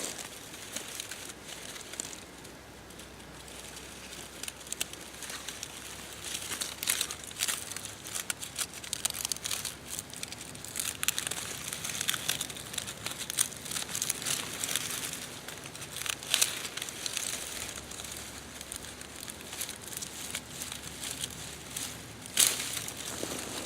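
Yucca leaves being cut and handled: a run of short, crisp crackles, scrapes and crinkling as the stiff leaves are worked off the plant with a flint flake.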